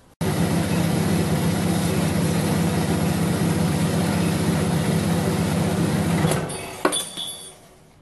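Horizontal metal-cutting bandsaw running steadily through a cut in steel pipe, its motor hum and blade noise even throughout. About six seconds in the motor is switched off and runs down, and a sharp metallic click follows a moment later.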